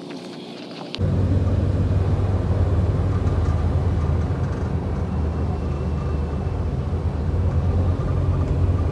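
Steady low rumble of a car on the move, heard from inside the cabin. It starts suddenly about a second in and holds steady.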